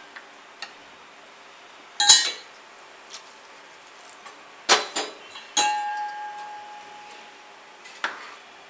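Steel ladle clinking and knocking against a kadai while stirring a thick curry, with about half a dozen separate clanks; one strike a little after halfway leaves a ringing metal tone that fades over about two seconds.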